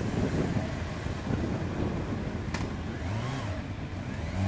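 Motorcycle engines pulling away from a toll barrier with throttle blips, over other engines idling in the queue. One engine revs up about three seconds in, and there is a sharp click just before it.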